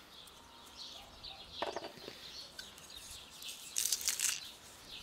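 Faint birds chirping, with a metal garlic press being handled over a pot: a click, then a short scraping crunch a little before the end as garlic is squeezed through the press.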